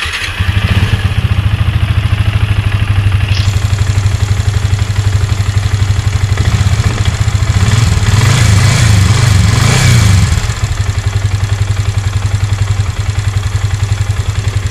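Yamaha Vixion (FZ150) 150 cc single-cylinder engine starting and running, now firing after the fix for its no-start fault. It is blipped up in revs for a couple of seconds around the middle, then settles back to a steady idle.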